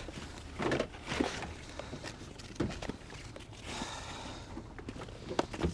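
Scattered light knocks and rustling of gear and rope being handled aboard a small inflatable boat, a few irregular thumps over a steady background hiss.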